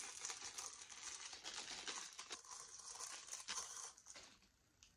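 Plastic wrapping crinkling and rustling as it is handled, with a few small clicks; it fades out about four seconds in.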